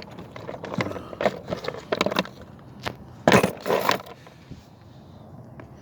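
Rummaging through a fishing tackle box: lures, hooks and small metal and plastic bits clattering and scraping, with a few sharper knocks, the loudest about three and a half seconds in, then quieter.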